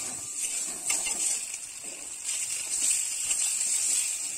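Turmeric-coated boiled eggs sizzling steadily in hot oil in a kadai, with a couple of light spatula knocks in the first second as the eggs are turned.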